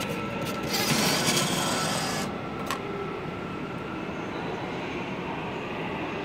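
Subway card-recharge machine's bill acceptor drawing in a banknote: a motorised whirr of about a second and a half, then a click. A steady low hum carries on after it.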